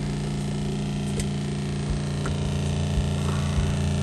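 Camper van water pump running with a steady hum while the water system fills and purges air, with a few light clicks and knocks over it.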